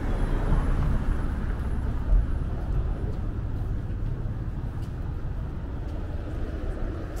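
Urban street ambience: steady traffic noise from road vehicles, with a short thump about two seconds in.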